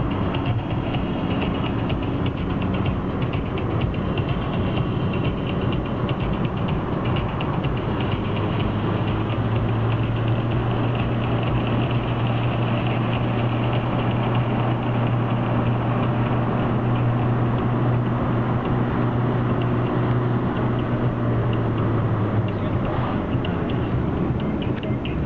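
Car driving downhill, heard from inside the cabin: steady engine and road noise with a fine, fast rattle. A low engine drone strengthens about a third of the way in and eases off near the end.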